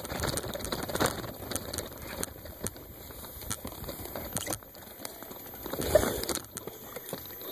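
Bicycle riding over a grassy dirt trail: tyres rolling through dry grass and twigs, with the bike rattling and knocking over bumps. A louder jolt comes about six seconds in.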